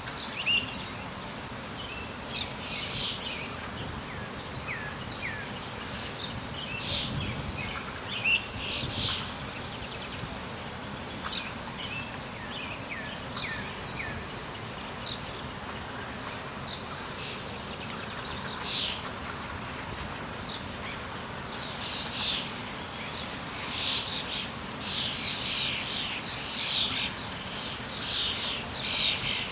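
Songbirds chirping and calling in quick short phrases, thicker toward the end, over a steady background hiss.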